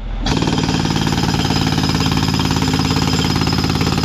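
Jackhammer hammering steadily in rapid blows, breaking up asphalt paved over a manhole lid. It cuts in abruptly and runs loud and even.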